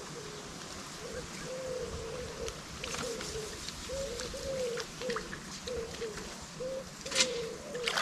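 A bird calling over and over in short, low, cooing notes, some rising and some falling slightly. About seven seconds in, a brief sharp noise cuts across it.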